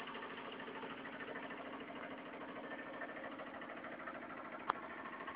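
Engine of a tube-well water pump running steadily with an even hum. There is one sharp click near the end.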